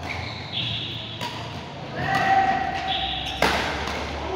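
Badminton play in an indoor hall: several sharp racket hits on the shuttlecock, the loudest about three and a half seconds in, between high, held shoe squeaks on the court floor.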